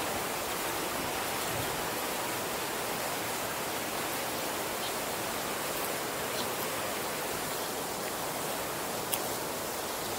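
Steady, even rushing noise, with a few faint ticks and one sharp click near the end.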